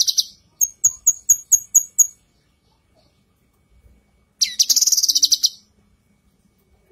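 Female cucak kinoi calling. A rapid, high trill ends just after the start, followed by a string of about seven sharp, high chirps over a second and a half, then a second rapid trill about four and a half seconds in.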